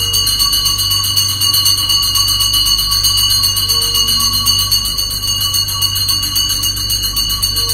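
Temple bell ringing rapidly and continuously, struck many times a second in an even rhythm, over a steady low hum.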